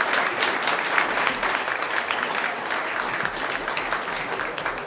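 Audience applauding, a dense clapping that slowly thins toward the end.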